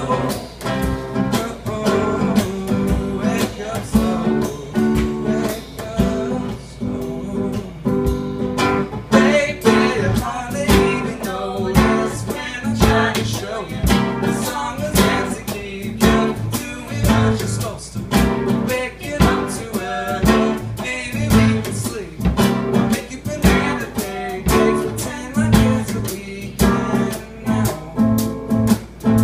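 A small acoustic band playing live: strummed acoustic guitar and a woman and a man singing over a drum kit keeping a steady beat.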